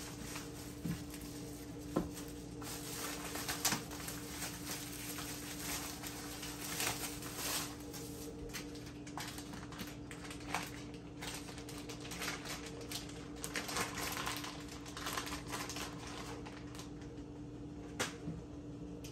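Irregular light clicks and taps over a steady low hum.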